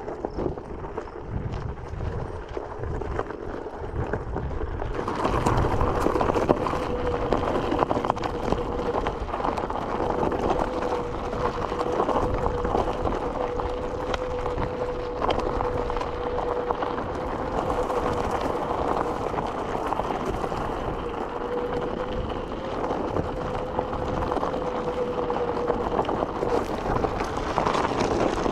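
Rough crunching and rumble of riding over a gravel trail. About five seconds in it gives way to rushing wind noise with a thin electric-motor whine held at one steady pitch until near the end.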